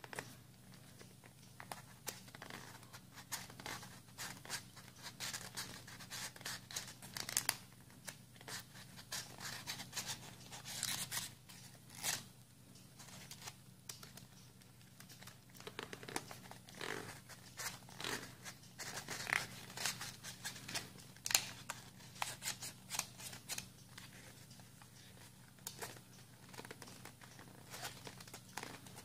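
Origami paper being folded and creased by hand: irregular crinkles, rustles and sharp crackles of stiff paper, with a faint steady low hum underneath.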